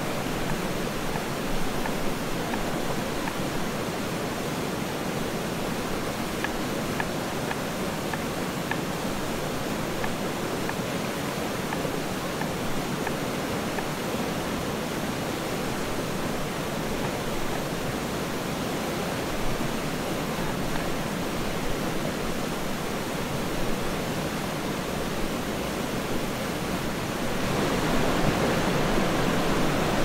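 Jungle stream rushing steadily over rocks, with a few faint taps of a knife on a wooden cutting board. The water gets louder near the end.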